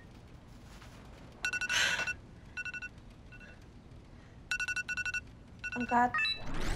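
Electronic ringtone of an incoming video call: groups of rapid high beeps repeating several times. Bedsheets rustle briefly about two seconds in, and a short murmuring voice sound comes near the end.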